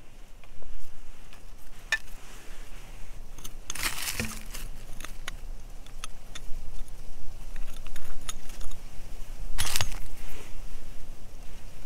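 Metal knife blade scraping and prying in stony soil, with scattered small clicks and clinks of grit and pebbles, and two louder scrapes about four seconds in and near the end.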